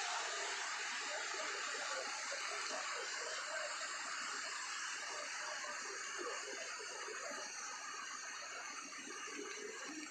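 Steady rushing of a small waterfall spilling over rocks into a pond, easing slightly toward the end.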